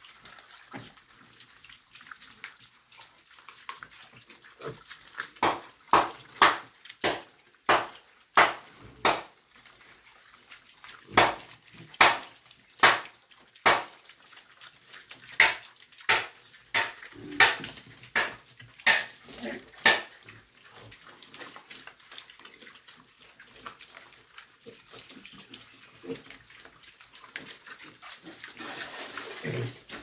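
Piglets feeding with their snouts in the feed, making a run of sharp smacking, slurping sounds, about one or two a second, through the middle. A low grunt comes near the end.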